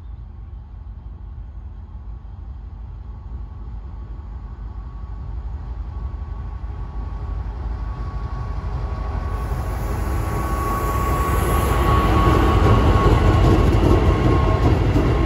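A pair of diesel locomotives running light toward the listener and passing close by, their engine rumble growing steadily louder, with a steady high whine over it.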